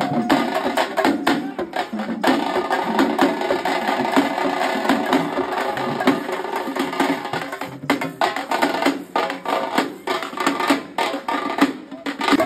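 Drum-led percussion music: fast, dense drum strokes played in a steady driving rhythm, with some held tones under the drumming.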